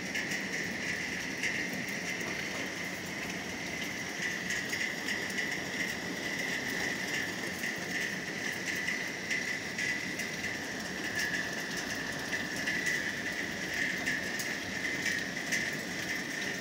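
Heavy thunderstorm rain pouring steadily onto slate roofs, with many small sharp taps of drops striking close by. A steady high tone runs underneath.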